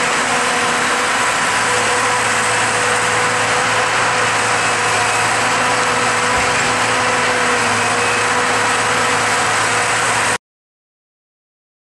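Log truck engine running steadily, with a steady hum over a wide hiss. The sound cuts off suddenly about ten seconds in.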